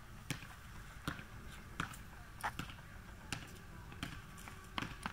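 Footsteps of a person walking across a dry winter lawn: a short sharp step about every three-quarters of a second, over a low steady background hum.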